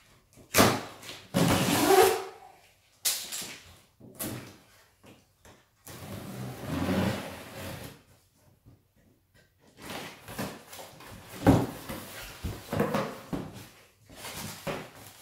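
A large cardboard shipping carton being unpacked by hand: its plastic strap pulled off and the flaps opened and folded back, with scraping, rustling and sharp knocks of cardboard. There is a longer steady scrape a little before halfway, then a short quiet gap before more scraping and knocks.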